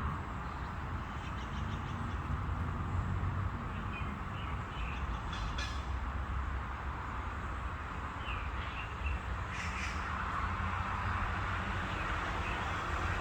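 Outdoor ambience: a steady low rumble and hiss, with a few short bird calls about four and eight seconds in.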